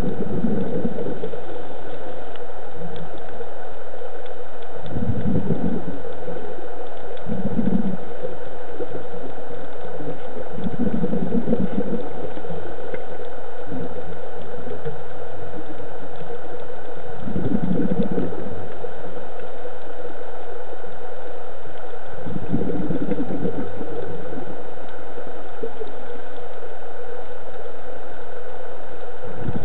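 Underwater sound of a scuba diver's breathing: bursts of exhaled bubbles from the regulator about every five seconds, over a steady hum.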